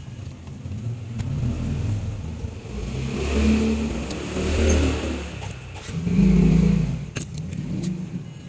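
A motor vehicle's engine rises and falls twice in low rumbling swells. Near the end, a few light clicks and knocks come from the guitar pedal's metal case and small parts being handled on the bench.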